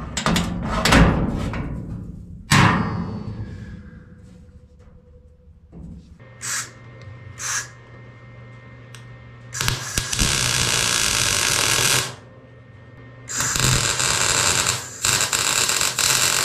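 Sheet-steel dash panel knocking and clattering as it is clamped into place, then arc welding on the steel: two short bursts, followed by two steady runs of welding crackle of about two to three seconds each.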